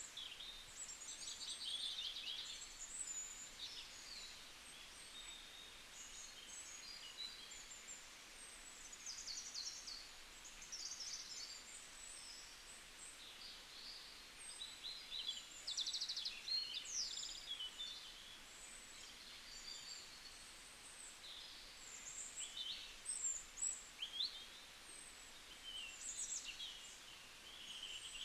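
Several songbirds singing at once: a dense tangle of short, high chirps and quick trills, overlapping throughout, over a faint background hiss.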